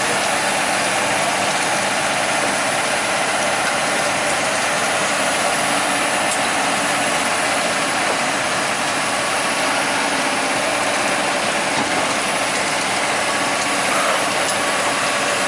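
Diesel engines of heavy equipment (excavators and a road roller) running steadily, with no revving or change in pitch.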